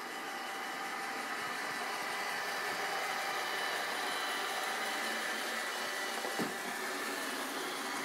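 iRobot Roomba 780 robot vacuum cleaning carpet: a steady whirring of its vacuum motor and brushes, growing louder over the first few seconds as it approaches. A brief knock about six and a half seconds in.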